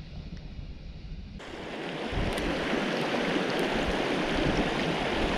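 Low wind rumble on the microphone, then about a second and a half in an abrupt switch to the steady rush of flowing stream water, which grows louder and holds.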